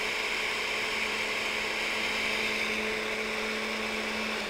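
Countertop blender motor running steadily at high speed, liquefying a liquid marinade of orange juice, peppercorns, ginger and cilantro. It switches off right at the end.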